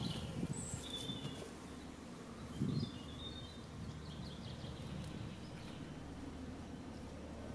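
Woodland birds chirping in short high calls, with a few footfalls on the forest floor near the start and a low thud about two and a half seconds in.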